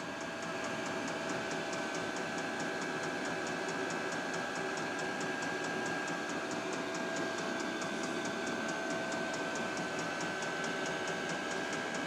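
VEVOR 8 kW diesel air heater running at full output: a steady fan whine and rush of blown air, with its fuel dosing pump ticking evenly about five times a second.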